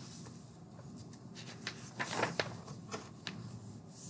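Pages of a picture book being turned and smoothed by hand: paper rustling and brushing in short bursts, loudest about two seconds in.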